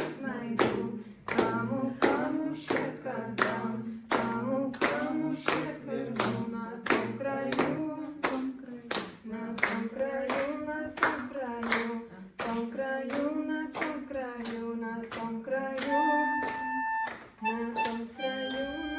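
A group of people singing a song together, clapping along in a steady beat of about two claps a second. Near the end a melodica joins with one held note and then a few shorter notes.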